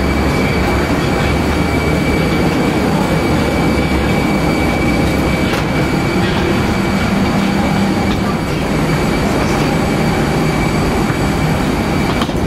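Parked Airbus A321's auxiliary power unit and air system running at the gate: a steady, loud rumble and hiss with an even high whine over it.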